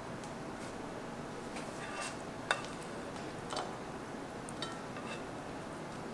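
Spatula scraping and knocking food out of a nonstick frying pan onto a plate: a few light clicks and clinks, the sharpest about two and a half seconds in, over a steady low hiss.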